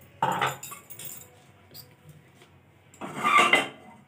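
Spoon clinking and scraping against a nonstick frying pan while ghee is spread in it: a sharp clink about a quarter second in, then a louder scrape about three seconds in.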